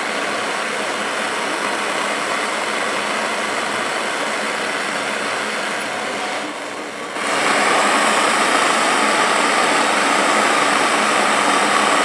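Handheld butane torch burning with a steady hiss as it heats the nail of a dab rig. The hiss drops away briefly about six and a half seconds in, then comes back louder.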